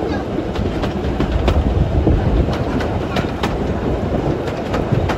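Railway carriage running along the line, a steady low rumble under irregular clicks from the wheels over the track, heard close from a carriage window of a steam-hauled train.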